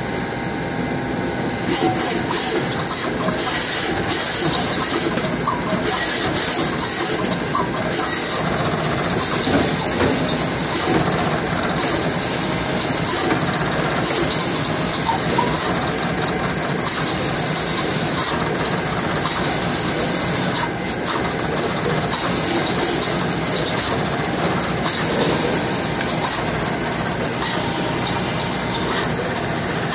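Fuji SMT pick-and-place machine running: a steady mechanical whir and hiss with a high steady whine and rapid, irregular clicking as the machine works.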